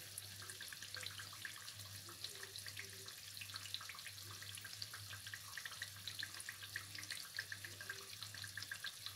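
Hot oil sizzling faintly with many small crackles around two semolina-filled dough pastries shallow-frying in a pan, over a low steady hum.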